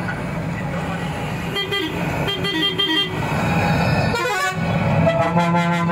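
Vehicle engine and road noise droning steadily while a vehicle horn sounds a series of short toots, some changing pitch, between about one and a half and three seconds in. A long steady horn-like tone sets in near the end.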